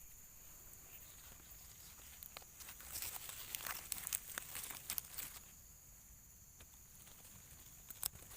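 Rustling and crackling, a quick run of small clicks lasting about two and a half seconds in the middle, over a steady high hiss; one sharp click near the end.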